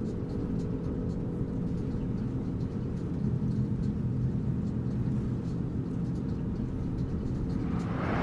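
Steady engine and road rumble of a moving car heard from inside the cabin, with a low steady hum. The noise swells briefly near the end.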